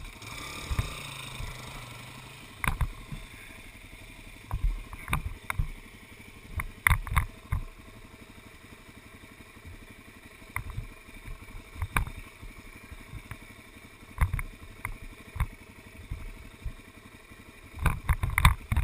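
A vehicle driving slowly over a rough dirt road, its engine running low and steady, with irregular knocks and rattles as it goes over bumps.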